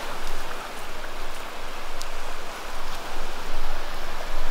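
Shallow surf washing up and draining back over wet sand: a steady fizzing hiss of foam and water that swells and eases with each wash.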